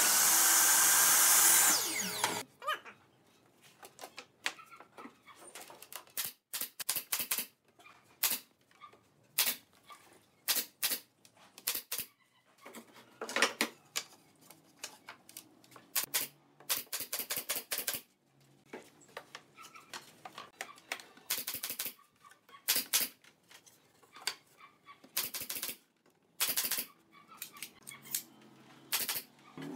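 Compound miter saw cutting through a wooden board for about two seconds, then stopping. After that, an irregular run of sharp knocks and clacks of boards being handled and set onto a wooden frame.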